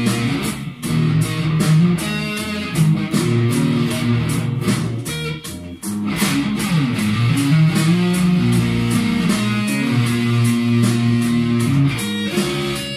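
Electric guitar playing blues-rock lead lines: held notes, with bent and sliding notes about six to eight seconds in. A backing beat ticks steadily underneath, about three ticks a second.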